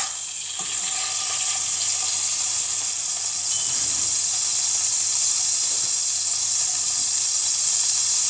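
Butter melting and sizzling in a hot stainless steel frying pan: a steady hiss.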